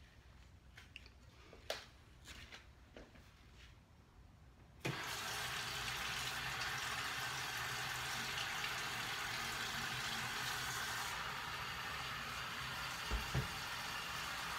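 Water tap turned on about five seconds in, running steadily into a stainless steel pressure cooker pot to fill it with water. Before that, a few light knocks of the pot being handled, and two low thumps near the end.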